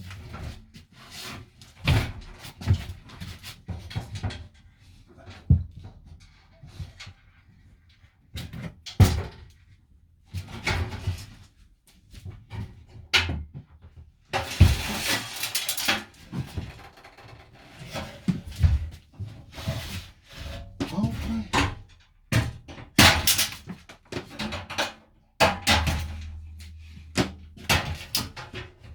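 Irregular knocks, clicks and clatter from hand tools and loose parts while a van's interior fittings are pulled apart, with a stretch of rustling about halfway through. A brief low hum comes near the end.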